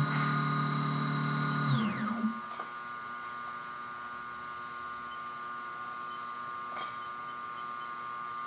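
CNC milling machine cutting an aluminium part under flood coolant. A high machine whine and a low hum hold steady, then the whine falls away about two seconds in, leaving a quieter steady hum.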